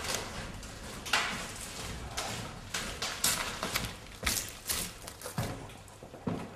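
Footsteps of a person walking along a walkway: a string of separate knocks, about two a second.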